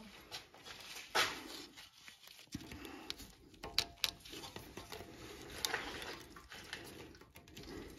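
Faint, scattered metallic clicks and scrapes of needle-nose pliers working at a pin retaining clip on a corroded brake caliper.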